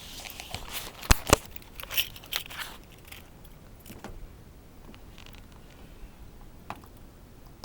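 Car keys jangling on their ring as the key is pushed into and worked in the door's lock cylinder, with two sharp clicks about a second in and a few lighter rattles after, then quiet.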